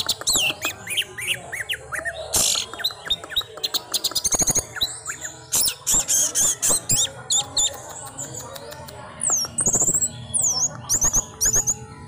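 Orange-headed thrush singing a rapid, varied song of sliding whistles, chips and harsh notes, with a quieter stretch past the middle.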